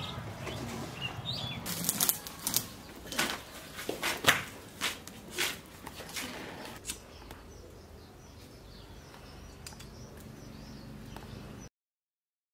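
Hands snapping stems and tearing leaves off a bunch of dulfi shak greens, a quick run of crisp snaps and rustles, then a quieter stretch; the sound cuts out abruptly near the end.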